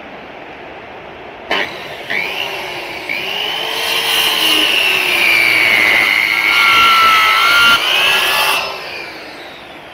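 Handheld electric circular saw starting up about a second and a half in and cutting through a bangkirai hardwood plank, its whine sagging in pitch as the blade bites. It stops about eight and a half seconds in and runs down.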